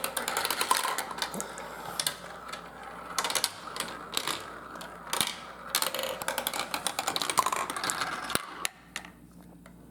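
Marbles rolling and clattering through a marble run track, a dense run of quick clicks and rattles that dies down near the end.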